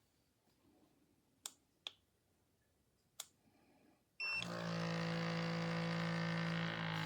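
Three sharp clicks, then a short electronic beep a little past the middle, after which the rechargeable portable espresso maker's pump starts and runs with a loud, steady buzzing hum.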